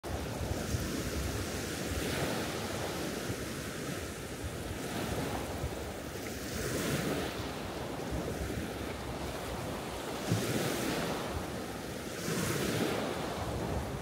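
Small Baltic Sea waves breaking and washing up a sandy beach, one wash swelling in every two to three seconds.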